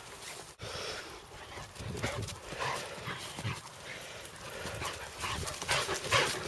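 A Cesky terrier and an Irish wolfhound playing, with irregular short dog sounds and scuffling, loudest about six seconds in.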